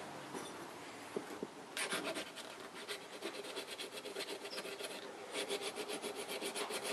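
EZE-LAP diamond hone scraping in quick back-and-forth strokes along the steel blade of a pair of bypass pruners, sharpening the edge. The strokes come loudest in a short spell about two seconds in and again over the last second and a half.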